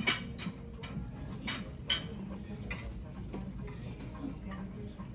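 A man biting into and chewing a roasted lamb rib close to the microphone: a string of short, irregular clicks from his mouth, the sharpest about two seconds in, over a steady low room hum.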